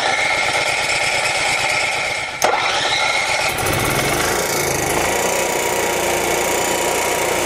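RV's built-in generator cranking on its starter, with a click about two and a half seconds in, then catching about three and a half seconds in and running steadily. It is starting now that the main fuel tank is above the quarter-tank cutoff that stopped it earlier.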